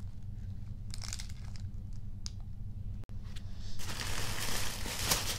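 Tissue paper rustling and crinkling as a hand rummages through a packing box: a few faint rustles at first, then loud, continuous crinkling from about four seconds in.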